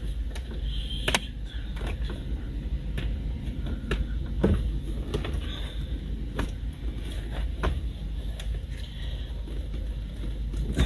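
Irregular sharp clicks and light knocks of plastic interior trim and wiring connectors being handled and unplugged, over a steady low hum.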